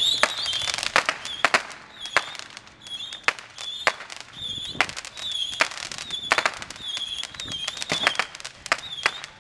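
Fireworks and firecrackers going off: a fast, irregular run of sharp pops and bangs. A short high chirping tone repeats over and over alongside them.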